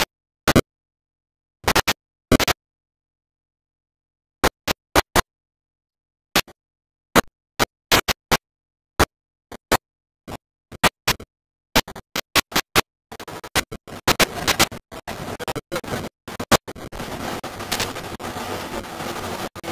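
Digital dropout noise from a degraded video tape: sharp crackling clicks separated by dead silence, coming faster about two-thirds of the way through and running together into continuous garbled noise near the end.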